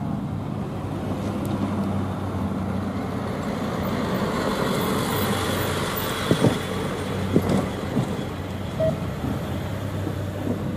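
Loaded coke hopper cars of a freight train rolling away on the track: a steady rumble with a low hum, and a few sharp clanks about six to eight seconds in.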